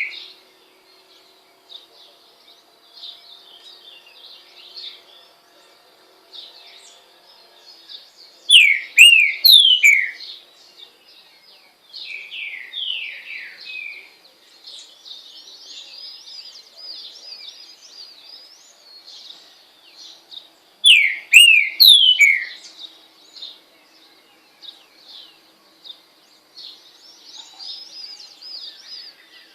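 Green-winged saltator (trinca-ferro) singing: loud phrases of clear whistled notes that fall in pitch, the loudest about 9 and 21 seconds in, with a softer run of falling notes between. Quieter chirping of other small birds goes on throughout.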